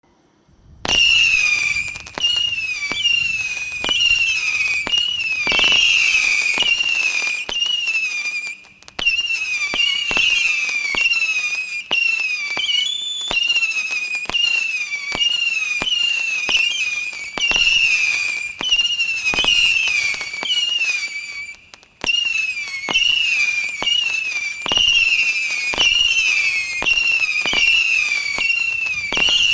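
A Phatboy 'Devil's Playground' fireworks cake firing shot after shot of whistling effects, each whistle falling in pitch, with sharp cracks among them. The volley starts about a second in and breaks off briefly twice before carrying on.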